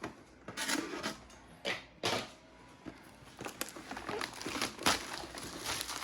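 Foil wrapper of a Pokémon card booster pack being torn open and crinkled by hand, in short irregular bursts of rustling.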